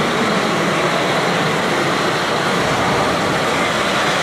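Steady, dense din of a model-show hall: RC model trucks and machinery running amid crowd background noise.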